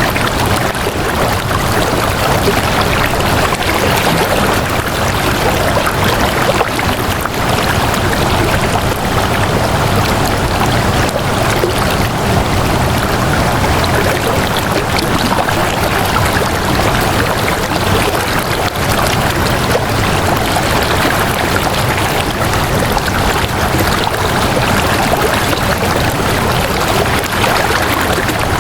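Flowing water running steadily, like a stream, with no change or separate events.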